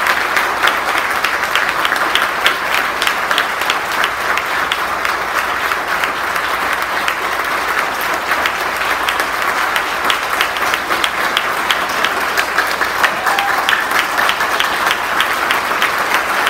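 Congregation applauding steadily, many hands clapping without a break.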